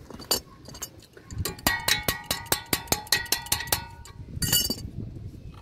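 Metal wrench clicking fast and evenly, about six clicks a second with a metallic ring, while tightening the front brake caliper's guide-pin bolt. A short scrape of metal follows near the end.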